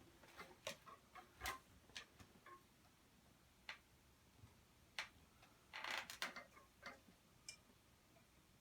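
Near silence as a ceiling fan runs quietly at medium speed in reverse, with faint, irregular ticks and clicks and a short cluster of them about six seconds in.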